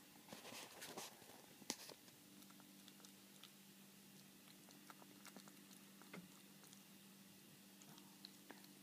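Kitten eating shredded chicken from a bowl: faint, scattered chewing clicks, with one sharper click just under two seconds in. A low steady hum comes in after about two seconds.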